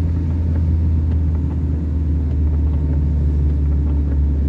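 Steady low rumble of a car driving on a wet road, heard from inside the cabin: engine and road noise.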